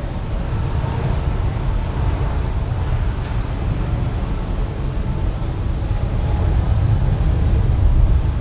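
Low, steady jet-engine rumble from a taxiing Airbus A380's four engines, growing slightly louder near the end.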